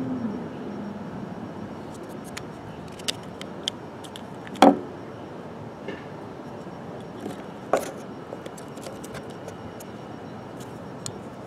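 Scattered small metallic clicks and rattles with two louder knocks, from hands and tools working on a truck's turn-signal parts, over a steady low background rumble.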